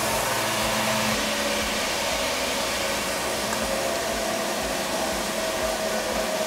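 Steady air-rushing noise of a running workshop blower, such as a dust extractor or fan. A low hum under it cuts off about a second in.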